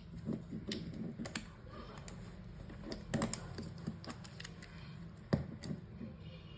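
Irregular plastic clicks and clacks from the pieces of a MoYu RS3M 2021 Maglev speed cube being twisted and pried apart by hand during disassembly, with one sharper snap a little after five seconds in.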